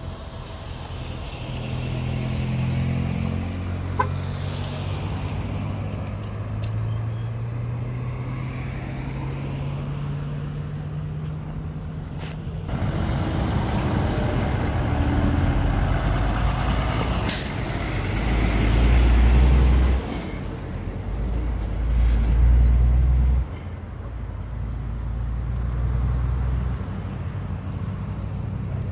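Highway traffic passing close by. A heavy truck's engine drones and slowly rises in pitch, then louder rushing road noise follows. About halfway through there is a short, sharp hiss, and deep rumbling surges stop abruptly.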